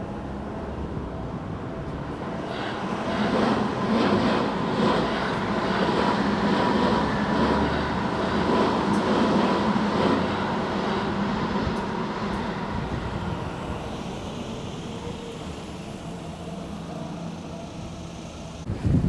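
A Seibu Shinjuku Line train passing the level crossing. Its sound swells for a few seconds and then slowly fades, with a run of regular clacks as the wheels cross the rail joints.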